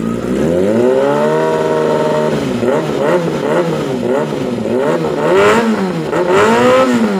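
Yamaha R6 inline-four sport bike engine revved through an SC Project slip-on exhaust: one long rev, held for about two seconds and let fall, then a string of quick throttle blips and two bigger revs near the end.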